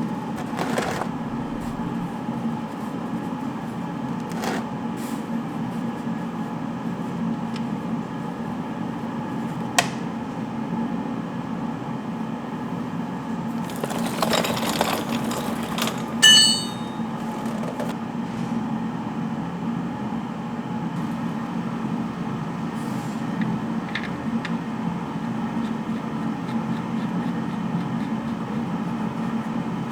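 Steady mechanical hum with scattered clicks of tools. A loud, bright metallic clink rings out about 16 seconds in.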